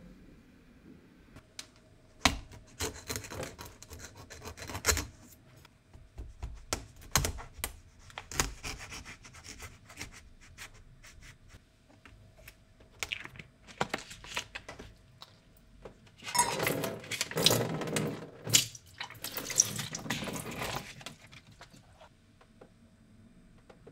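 Plastic tofu package handled and peeled open over a kitchen sink: scattered crinkles, crackles and clicks of the plastic. About sixteen seconds in comes a few seconds of louder splashing as the packing water is tipped out into the sink.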